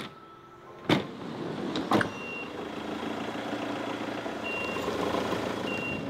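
Three sharp slams about a second apart, like the doors of a 2008 Citroen Jumper camper van being shut, then the van's running and road noise slowly building as it moves off, with three short high beeps.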